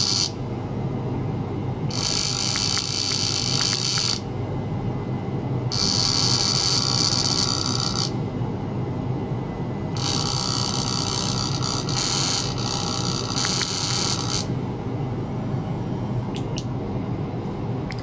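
Ultrasonic probe driven by a signal generator, giving off a high-pitched electronic buzz that switches on and off: three bursts of about two to four seconds each, over a steady low hum.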